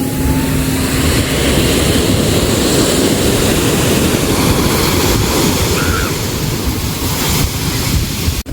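Sea waves and surf, a steady rushing wash with wind buffeting the microphone, cut off by a brief dropout near the end.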